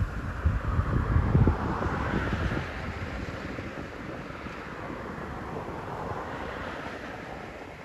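Wind gusts buffeting the microphone for the first couple of seconds, over the rushing noise of a vehicle passing on the road, which swells and fades twice.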